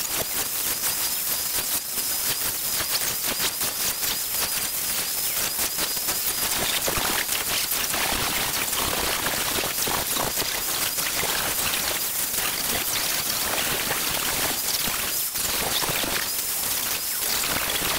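Angle grinder spinning against the wood of a staff, grinding and shaping it: a steady noise thick with fine crackling as chips fly off, with a thin high whine during the first six seconds or so.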